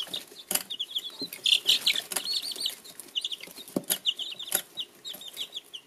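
A brood of baby chicks peeping: a steady stream of short, high cheeps from many chicks at once, with scattered sharp clicks among them.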